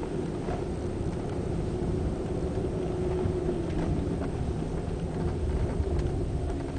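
BMW 740i on the move, heard from inside the cabin: a steady road and engine rumble with a drone that drops in pitch about halfway through. A few faint ticks or creaks sound over it, likely the creaking the owner says has been getting worse.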